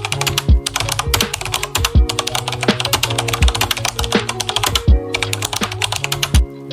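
Background music with a hip-hop style beat: deep bass notes and kick drums under a long run of rapid, even clicking hi-hats that thins out near the end.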